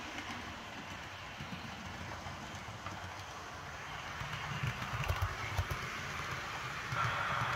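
Hornby OO gauge Midland Pullman HST model running on a layout, its sound decoder playing diesel power-car engine sound over the rumble of the wheels on the track. The rumble grows louder about four to six seconds in as the train passes close.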